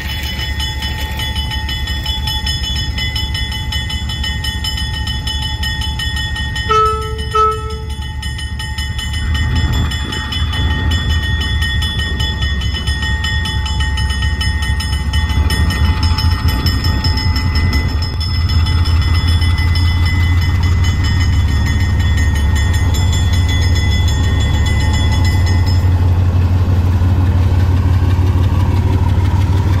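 A lash-up of GE U20C and EMD SD40-BB diesel locomotives running past. A steady engine rumble grows louder as the units come close, with a steady high whine over it. There are two short horn toots about seven seconds in.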